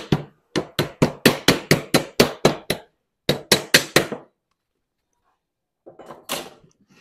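Sheet lead being dressed to a square with a lead dresser: quick, dull taps at about four a second, in two runs with a short pause between. A short scraping noise near the end.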